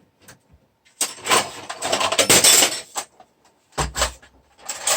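Handling noise while a Hatsan Flashpup air rifle is taken apart: about two seconds of rattling and scraping of hard parts, then a low thump and a short clatter near the end.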